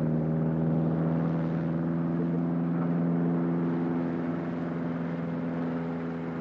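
Steady drone of a light propeller aircraft's engine in flight, holding an even pitch.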